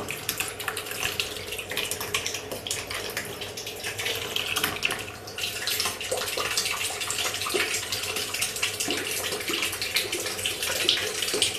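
Jet of water from a mini submerged 6 V DC brushed pump falling back into a plastic basin of water, splashing steadily. The pump itself is barely heard over the flowing water.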